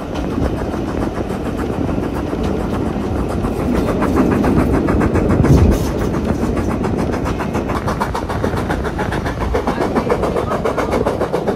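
Steam train running, heard from a carriage window: a steady noise of wheels on rails with a quick, even rhythm of beats, and a brief louder rumble about halfway through.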